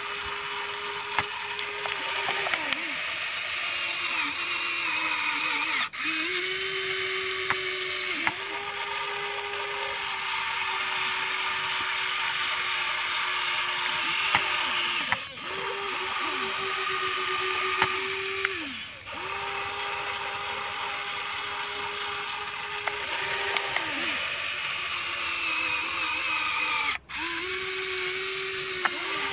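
Huina radio-controlled toy excavator's small electric gear motors whining steadily as it works the boom and bucket. The whine slides down and cuts off briefly several times as one movement stops and the next starts.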